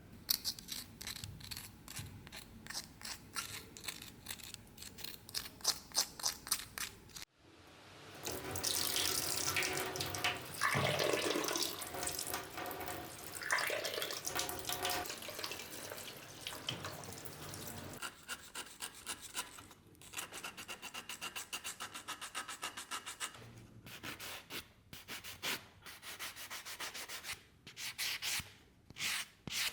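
Rapid back-and-forth abrasive rubbing by hand, several strokes a second. A cut about seven seconds in leads into a denser stretch of continuous scrubbing, and the quick separate strokes come back for the last third.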